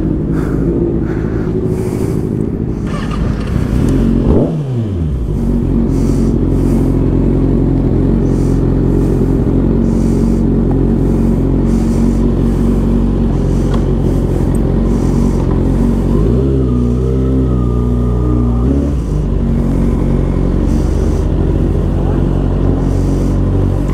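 Motorcycle engine running steadily under way, with a quick falling pitch about four seconds in and a wavering change in revs between about sixteen and nineteen seconds.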